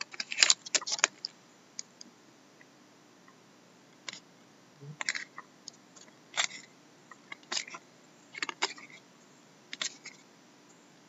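A trading card pack's wrapper crackling as it is torn open during the first second, then the cards being flicked and slid one past another, a short soft snap or rustle about every second.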